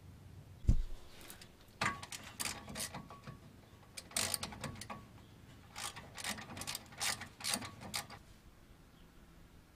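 Hand tools and metal brake parts clicking and clinking on a car's front brake caliper and hub, in uneven clusters of sharp clicks, after a single dull thump about a second in.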